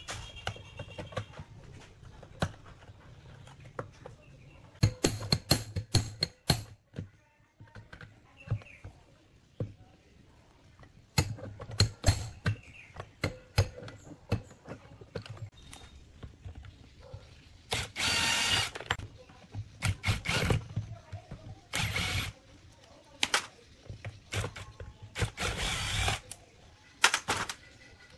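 Screws being turned out of a two-stroke chainsaw's housing with a screwdriver, with scattered clicks and knocks of metal tools on the plastic casing and workbench. Clusters of sharp clicks come twice, and several noisy bursts about a second long come near the end.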